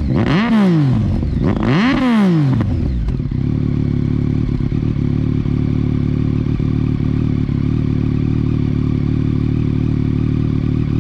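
Yamaha MT-09's inline three-cylinder engine through an Akrapovič carbon slip-on exhaust, blipped twice in quick succession near the start, each rev rising and dropping back, then idling steadily.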